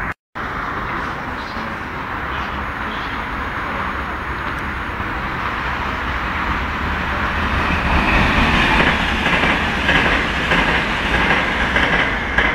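Electric suburban train running on the rails: a steady rumble with wheel clatter. It gets louder, with more high-pitched rail noise, from about eight seconds in. The sound drops out for a moment right at the start.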